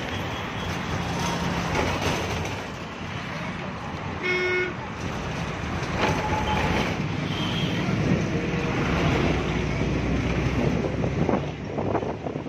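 Steady road traffic noise heard from a moving vehicle, with a vehicle horn tooting briefly about four seconds in and a fainter horn about two seconds later.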